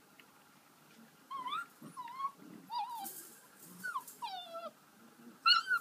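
Border Collie puppies yipping and whining as they play-fight: a string of short high yelps that bend up and down in pitch, starting about a second in, with the loudest near the end.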